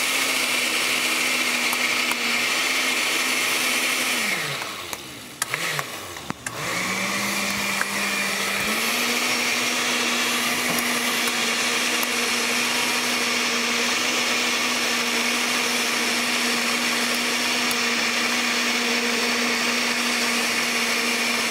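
Small electric kitchen appliance motor running with a steady whine. It winds down about four seconds in, starts again about two seconds later and comes back up to a steady speed.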